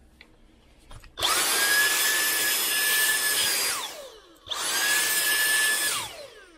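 Dyson V7 cordless vacuum run in two bursts, the first about two and a half seconds and the second about a second and a half. Each time the motor comes up to a steady high whine over a rush of air, then cuts off and winds down with a falling whine.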